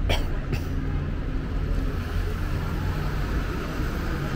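A parked VDL tour coach's diesel engine idling, a steady low rumble. Two short sharp sounds about half a second apart cut in near the start.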